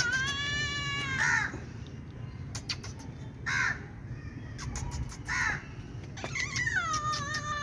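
Calico cat meowing: a long meow at the start and another long one, falling in pitch, from about six seconds in, with three short harsh calls between them.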